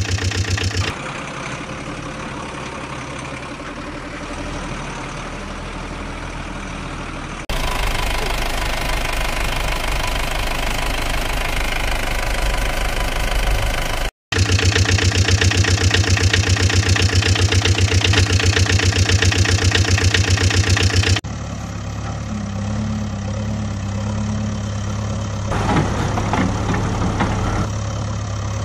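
Vehicle engine sounds laid over toy trucks and a toy backhoe loader: an engine idling and running with a fast, even knocking beat. The sound switches abruptly several times, with a brief dropout about halfway through. It is loudest for several seconds after that.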